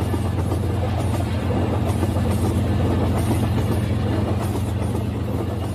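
Battery-powered toy train running on plastic track: a steady electric-motor hum with rattling of the wheels and cars, a little louder in the middle as the train passes close.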